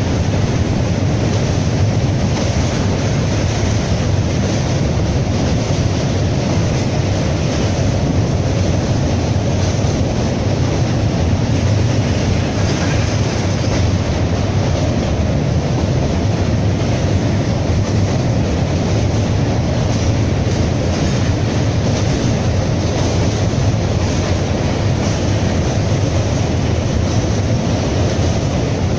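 Train running over a steel truss bridge, heard from inside a carriage at the window: a steady low rumble of wheels and coaches on the rails.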